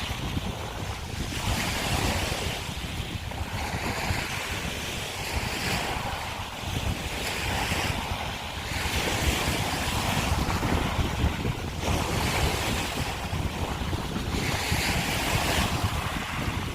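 Small waves washing in over a shore of broken scallop shells, a fresh hissing wash every two seconds or so, with wind rumbling on the microphone.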